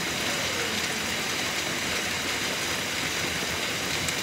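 Hailstorm: hail and rain pelting down outside in a steady, dense hiss that holds even throughout.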